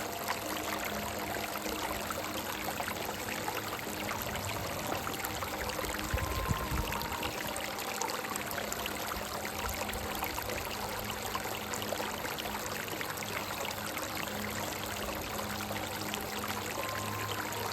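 A rocky stream running steadily. A soft, slow melody of long held notes plays faintly underneath.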